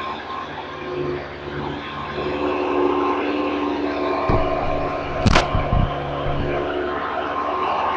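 Hoover High Performance Convertible upright vacuum cleaner running steadily with a whirring motor and brush roll, the brush roll's bearings freshly cleaned and greased. A few sharp knocks come a little past halfway.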